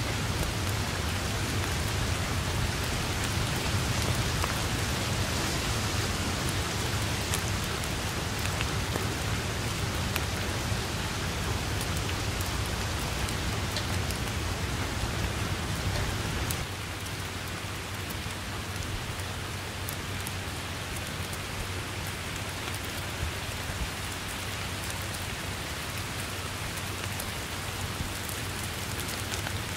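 Steady heavy rain falling on grass and foliage, with single drops ticking close by. A low rumble underneath cuts off suddenly about halfway through, and the rain is a little quieter after that.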